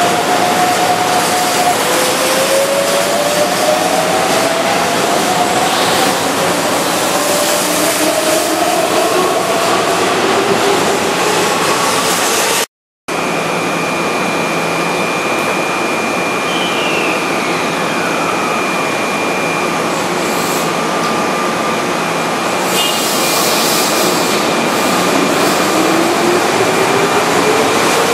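Keihan electric commuter trains at a station platform: a train accelerating away with the whine of its traction motors climbing in pitch over a steady rolling rumble. After a brief break another train's whine falls in pitch as it brakes to a stop, and near the end the whine rises again as a train pulls away.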